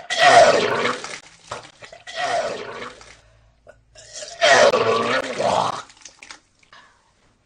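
A man retching loudly three times, long wet heaves about two seconds apart.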